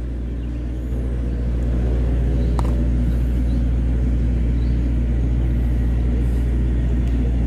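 An engine running with a steady low rumble, growing louder about a second in, with one sharp click partway through.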